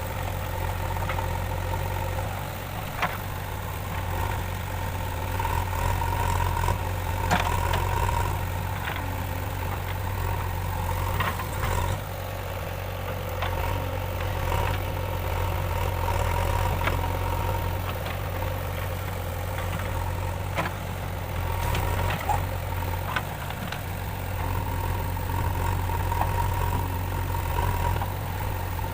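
Diesel engine of a JCB 3DX backhoe loader running steadily, with a tone that swells at times and a few sharp knocks or clanks scattered through.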